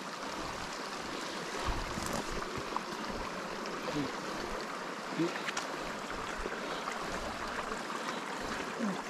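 Steady rush of a hill stream pouring over a small waterfall.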